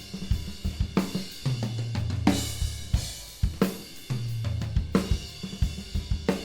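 Acoustic drum kit playing a repeating groove of sharp hits, low drum booms and cymbal wash, heard through a mid-side pair of close room microphones.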